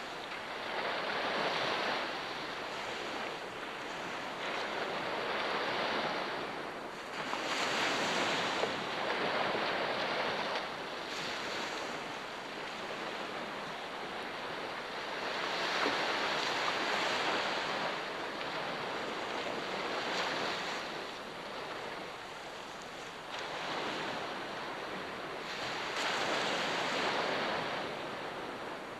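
Ocean waves breaking on the shore, a steady wash that swells with each wave every several seconds and then recedes.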